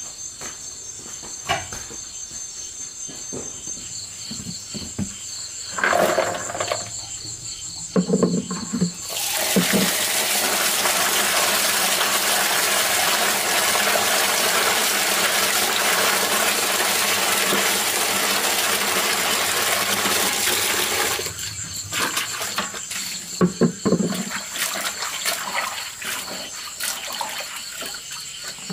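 Insects trilling steadily in high pulsing tones, broken by a few knocks; about nine seconds in, a loud steady rush of running water starts suddenly and cuts off about twelve seconds later, then the insects and knocks carry on.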